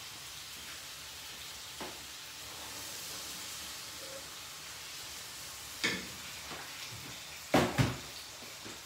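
Food sizzling in a frying pan, a steady hiss, with a sharp knock about six seconds in and two louder knocks near the end.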